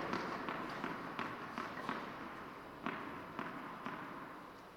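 Tennis ball bounced repeatedly on a hard indoor court before a serve: a series of sharp taps, roughly one every half second, spacing out and fading toward the end.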